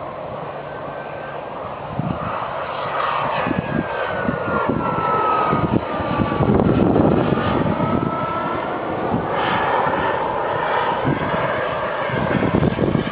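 Radio-controlled model airplane flying past in strong wind: its motor whine drops in pitch through the middle, where it is loudest, then rises again, over steady wind buffeting on the microphone.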